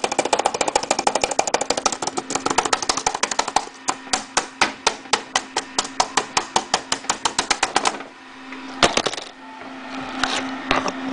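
Laptop keyboard keys pressed over and over in a fast run of clicks, slowing to about six a second after about four seconds and stopping about eight seconds in, with one sharper knock a second later. The keys are being hammered at a 'Press any key to restart' prompt that does not respond.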